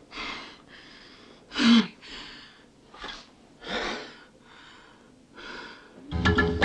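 A woman's ragged, gasping breaths and sobs in grief, coming in separate bursts about once a second, the loudest a voiced gasp a little under two seconds in. Lively music cuts in abruptly near the end.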